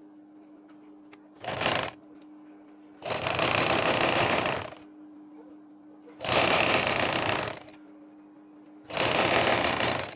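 Sewing machine stitching in stop-start runs: a short burst under two seconds in, then three longer runs of about one and a half to two seconds each, with pauses between them as the fabric is repositioned.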